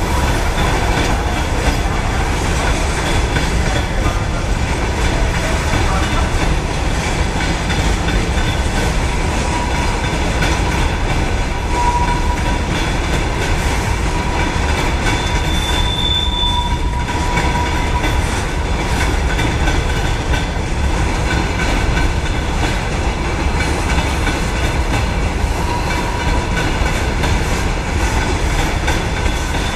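Covered hopper wagons of a freight train rolling past, a steady rumble of steel wheels on rail. Brief high wheel squeals ring out now and then.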